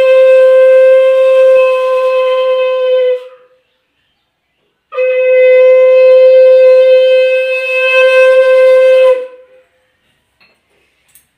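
Conch shell (shankha) blown in two long, steady blasts on one note: the first ends about three seconds in, the second starts about two seconds later and lasts about four seconds.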